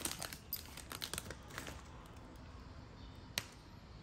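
Glossy Panini Prizm trading cards being flipped through by hand: quiet slides and small clicks as card edges tap against each other, with one sharper click about three and a half seconds in.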